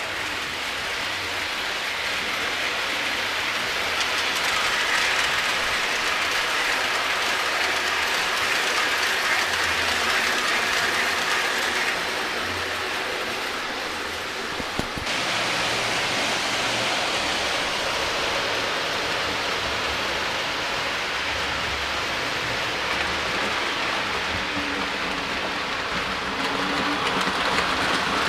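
O gauge Lionel model trains running on three-rail track: a steady rolling rumble of wheels and motors as a string of passenger cars passes close by, with a single click about halfway through.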